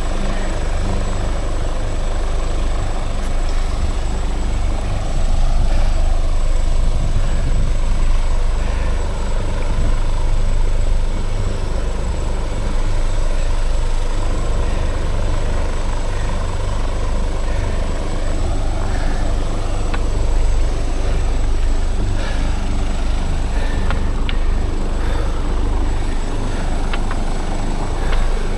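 Helicopter running nearby, a loud steady low rumble that swells a little now and then.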